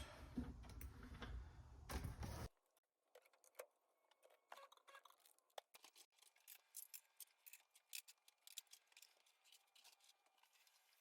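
Rustling handling noise that cuts off suddenly about two and a half seconds in, then near silence with scattered faint clicks and taps.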